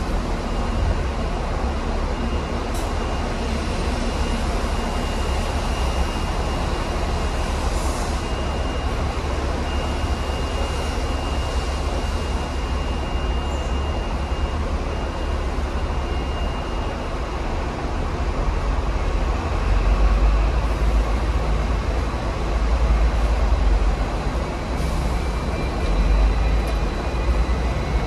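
Hong Kong Tramways VVVF double-deck electric tram running, with a continuous low rumble and a thin steady high tone through the first half. The rumble grows heavier about 20 s in and again near 23 and 26 s.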